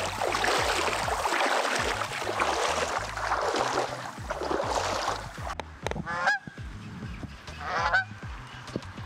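Wind rushes over the microphone with a heavy rumble, then drops away about five and a half seconds in. A bird then gives two short wavering calls about a second and a half apart.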